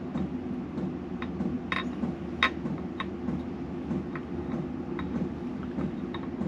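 Scattered light metallic clicks and clinks of steel engine parts and hand tools being handled while a motorcycle engine's camshafts are worked loose, about a dozen taps at uneven intervals, the sharpest one about two and a half seconds in, over a steady low hum.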